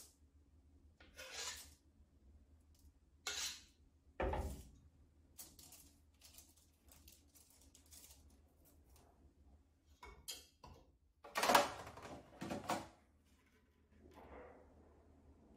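A silicone spatula scraping a stainless steel mixing bowl, with the bowl and utensils handled and set down: a series of separate short scrapes and knocks, one with a low thump about four seconds in, the loudest a little before the end.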